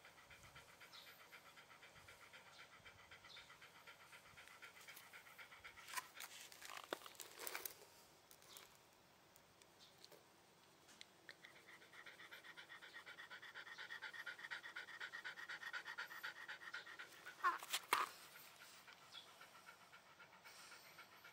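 Shiba Inu panting rapidly with its tongue out, a fast even huffing that stops for a few seconds about a third of the way through and then picks up again. A few sharp clicks come before the pause, and a louder pair near the end.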